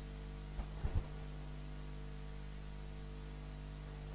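Steady low electrical hum with a faint hiss, and a few brief low thumps about a second in.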